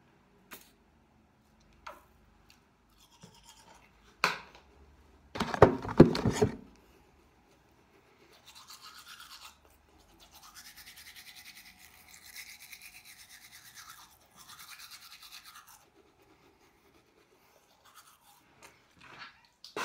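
Manual toothbrush scrubbing teeth in quick back-and-forth strokes, in stretches of a few seconds. Before that come a few small clicks, a sharp click, and a loud brief rustling clatter about five to six seconds in.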